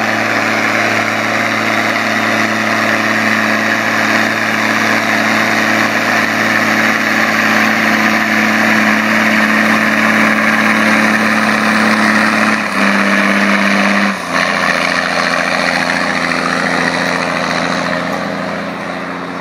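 Steiger Panther four-wheel-drive tractor's diesel engine running loud and steady under load, pulling a tillage implement through the field. Its pitch steps down twice about two-thirds of the way through, and the sound eases off near the end as the tractor moves away.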